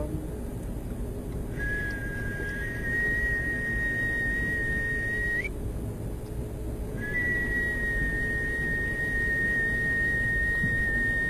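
A high, pure whistle tone held steady for about four seconds, then again for about five seconds after a short gap. Each time it starts slightly low and lifts a little at the end. A steady low hum runs underneath. It is the listening tone used to check that both ears hear it equally.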